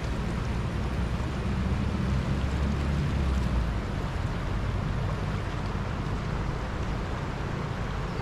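Swollen river rushing steadily over and between rocks, a full, even roar of water high after the monsoon rains.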